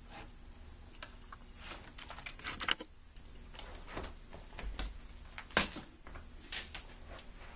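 Scattered light clicks and rustles as a new vehicle shift cable is handled and moved about, with a soft thud about two thirds of the way through.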